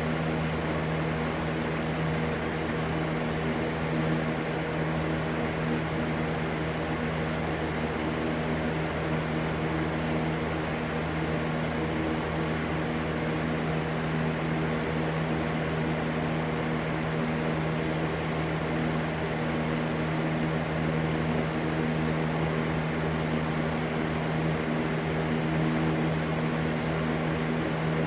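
Steady white noise with a constant low hum underneath, unchanging throughout.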